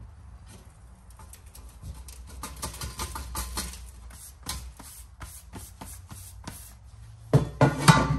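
Hard objects tapping and clicking against each other, busier a few seconds in, then several loud knocks near the end.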